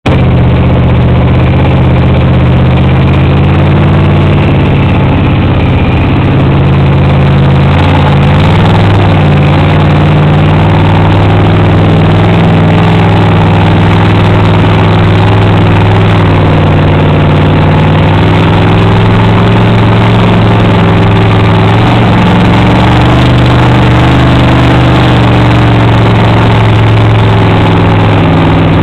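Sandrail engine running loud and fairly steady as the rail drives over sand dunes, its pitch shifting a little with the throttle, heard from on board close to the engine.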